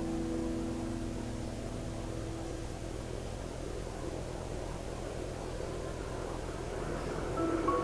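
Soft background piano music: a held chord fades away in the first couple of seconds, leaving a faint steady low hum, and new piano notes come in near the end.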